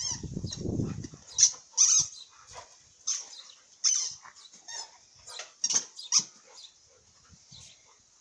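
A dog chewing a squeaky toy, setting off a string of short, high squeaks at irregular intervals that die away after about six seconds.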